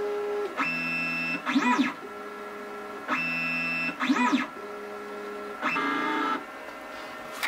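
Weedo ME40 3D printer's stepper motors whining at steady pitches during its bed-probing moves, with short rising-then-falling pitch sweeps as the motors speed up and slow down. The pattern repeats about every two and a half seconds.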